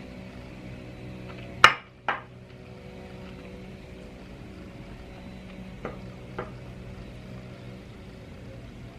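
Utensil clinking against a dish during eating: two sharp clinks a little under two seconds in, then two lighter ones around six seconds in, over a steady low background hum.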